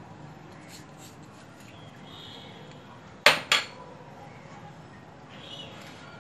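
Two sharp clinks about a quarter second apart, about three seconds in: a utensil knocking against a plastic mixing bowl of batter.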